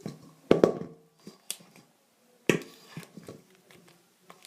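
Homemade slime being stirred in a bowl as it thickens and turns sticky: a few sharp knocks of the stirring utensil against the bowl, a loud pair about half a second in and another about two seconds later, with softer clicks and sticky squelches between.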